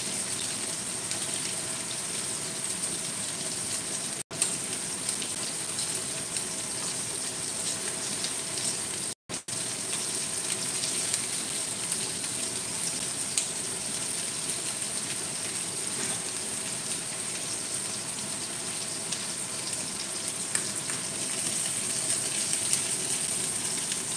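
Chicken pieces browning in hot oil in a stainless steel wok with garlic and spring onion: a steady, even sizzle. The sound cuts out briefly twice, about four and nine seconds in.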